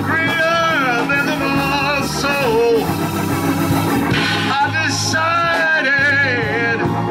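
A man singing long, drawn-out melodic lines into a microphone over an organ holding steady sustained chords.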